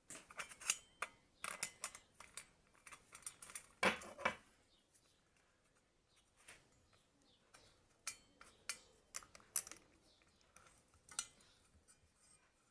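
Small metal parts clinking and tapping as they are handled: a busy run of sharp clicks in the first few seconds, the loudest about four seconds in, then scattered single clinks later.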